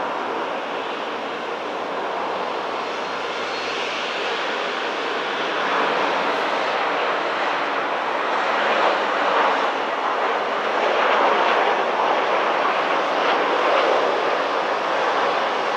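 Jet engine noise of a Boeing 737 airliner on final approach and landing: a steady rushing roar that grows louder about halfway through as the plane passes low over the runway and touches down.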